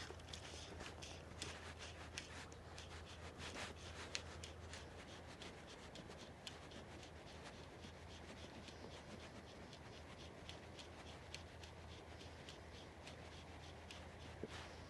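Faint scratchy rubbing with many small, irregular clicks over a low steady hum, like gear or clothing being handled close to the microphone.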